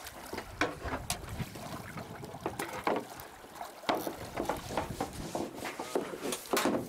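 Sounds aboard a fishing boat: a low rumble with wind and water noise and scattered knocks and clicks on deck.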